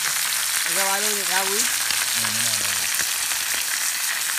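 Whole tilapia frying in a pan of hot oil over a wood fire: a steady, loud sizzle.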